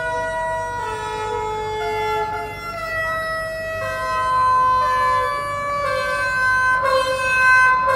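Several Stadler FLIRT train horns sounding long held notes together in chords, the pitches shifting every second or so to play a slow tune.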